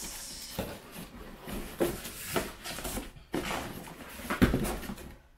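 A new CV axle being unpacked from its long cardboard box: rustling wrap and scraping cardboard, broken by several knocks as the box and axle are shifted, the loudest a little over four seconds in.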